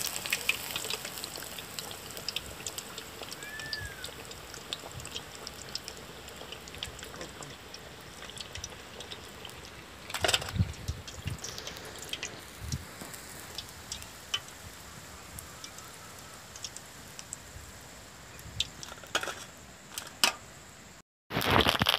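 Hot oil sizzling as fish fries in a pan, a steady hiss dotted with small crackles, with a louder burst of crackling about ten seconds in. The sound drops out for a moment near the end.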